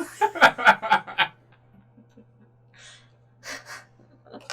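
Hearty laughter in a few quick, loud bursts, then breathless gasps for air, over a steady low electrical hum.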